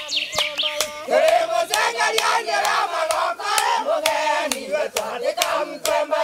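A group of voices singing and calling out together in a chant, with sharp hand claps recurring a few times a second.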